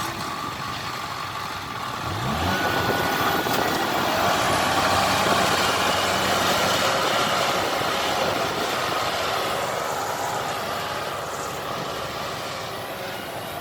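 Kubota 70 combine harvester's diesel engine running under load, revving up about two seconds in, staying loud, then easing slightly near the end.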